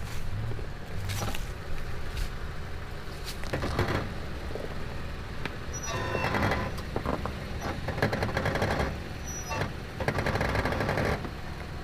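Off-road vehicle engine running low and steady, with repeated bursts of crunching and rattling.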